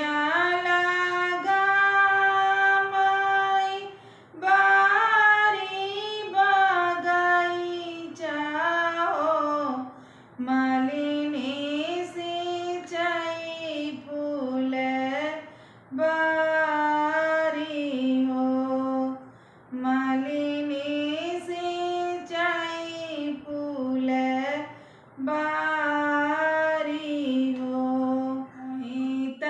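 A woman singing a Bagheli folk wedding song (vivah geet) solo and unaccompanied, in sung phrases of a few seconds each with short breaths between them.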